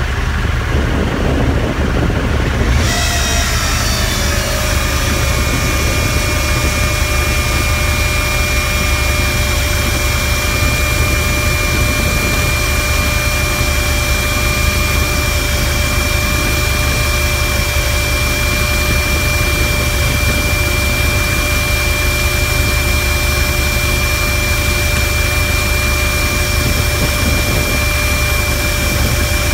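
Lavatory service truck's engine running steadily with a low rumble. About three seconds in, a high hiss and a whine start; the whine dips briefly in pitch and then holds steady.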